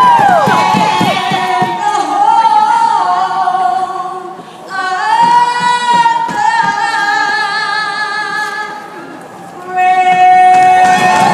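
A woman singing slow phrases of long held notes, some with vibrato, with short breaks between phrases.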